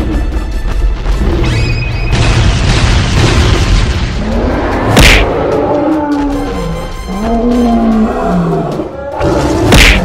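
Cartoon action soundtrack: dramatic music under heavy booms, with a sharp loud impact about halfway through and another near the end. In the second half, growling roars rise and fall over the music.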